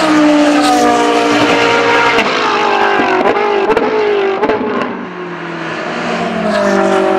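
GT race car engines as two cars run close together through a corner, their engine notes falling in pitch, with a few sharp cracks around three to four seconds in. A further car's engine builds up near the end.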